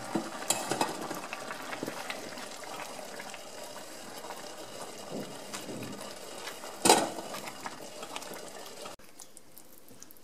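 Wooden spoon stirring simmering risotto in an enamel pan: wet rice and broth sloshing and bubbling, with small scrapes of the spoon, and one sharp knock of the spoon against the pan about seven seconds in.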